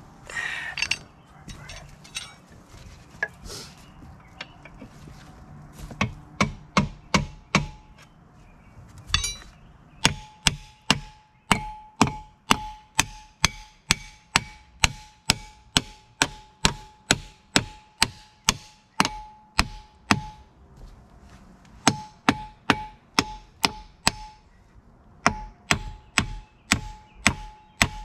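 Hammer striking metal parts of a skid steer's track undercarriage: a few scattered blows at first, then steady strikes about two a second, each with a short metallic ring, broken by brief pauses about two-thirds and seven-eighths of the way through.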